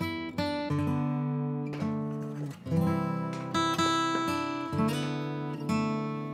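Background music of a strummed acoustic guitar: chords struck about once a second, each ringing out before the next.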